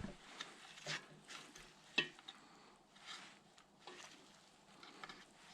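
Faint, scattered clicks and rustles of hands handling wires and small parts, about one light tap a second.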